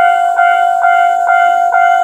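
Japanese railway level crossing alarm ringing its 'kan-kan' warning, a clear repeated ding about twice a second, which signals that the crossing is closed for an approaching or passing train.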